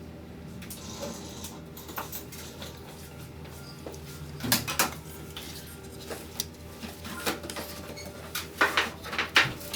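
Small hard objects being handled on a workbench: scattered light clicks and clinks, with two clusters of sharper clacks about four and a half and nine seconds in, over a low steady hum.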